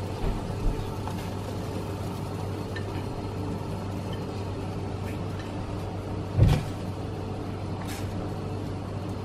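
Pot of water boiling on a lit gas burner, a steady low hum and hiss, as dumplings go into the water. A dull thump sounds about six and a half seconds in, and a light click follows near the end.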